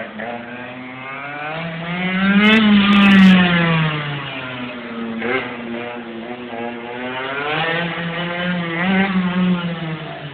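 Metrakit minimoto's small engine running at high revs, swelling louder and higher in pitch, then falling away. This happens twice: about three seconds in and again near the end.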